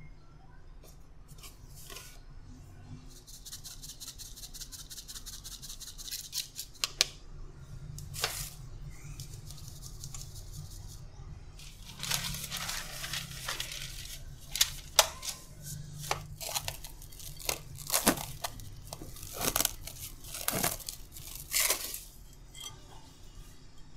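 Food-preparation handling sounds: several seconds of rapid fine scraping or rustling, then a series of sharp knocks and taps.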